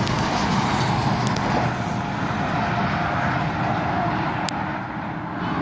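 Motor traffic passing close by on a highway bridge roadway: a steady, loud rush of tyre and engine noise from cars and trucks going by at speed.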